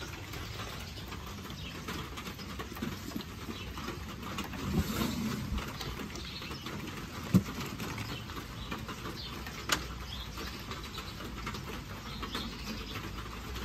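Rustling and bumping from a hinged plywood box lid being lifted and hooked up on webbing straps with S-hooks, with two sharp knocks, one about seven seconds in and one near ten seconds.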